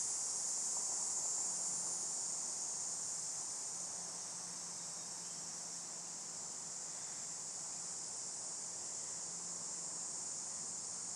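A steady, high-pitched chorus of insects such as crickets, shrilling without a break. The chorus is the main sound, with only a faint low hum beneath it.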